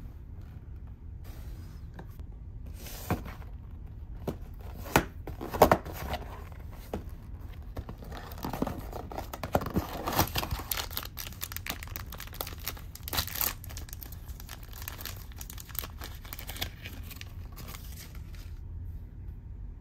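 Small paperboard gift box and its packaging being opened and handled by hand, with tearing and crinkling. A few sharp snaps come about a third of the way in, then a denser run of crackling in the middle.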